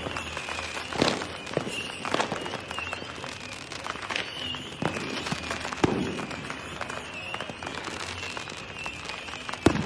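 Diwali firecrackers and fireworks bursting at irregular moments, with many small cracks and louder bangs about a second in, near the middle and near the end. A faint high wavering whistle runs underneath.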